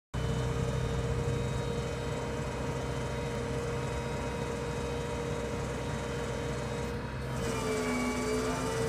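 Hunke 6T pump hoist's 2-speed motor running at standard speed: a steady mechanical whine over a low hum. About seven and a half seconds in, the whine dips in pitch and comes back up, with a second lower tone briefly joining it.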